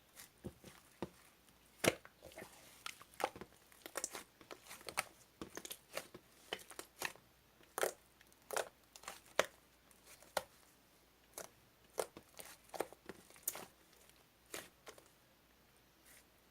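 Handling noise: irregular light clicks, taps and crinkling, a few a second.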